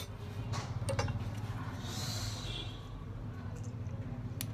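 Steady low room hum, with a short soft hiss about two seconds in and a single sharp click near the end.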